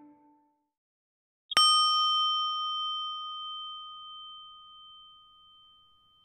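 The last notes of music die away, and about a second and a half in a single bell is struck once, giving a clear ringing tone that fades slowly.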